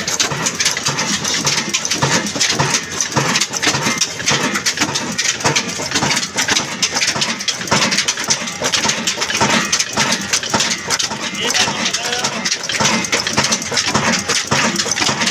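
Old 22 hp stationary diesel engine running steadily, with a dense, even mechanical clatter.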